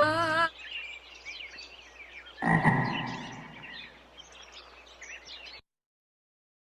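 The last musical note ends about half a second in, then a chorus of short, high chirping animal calls takes over. A louder sudden sound comes about two and a half seconds in and fades, and everything cuts off abruptly a few seconds later.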